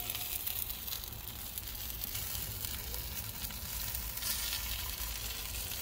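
Sauced chicken legs sizzling on the grate of a charcoal drum smoker: a steady fine crackle, with a low rumble underneath.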